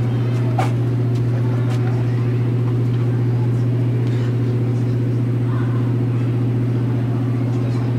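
Steady, loud low hum of a warship's running machinery, unchanging throughout, with a few light clicks in the first two seconds.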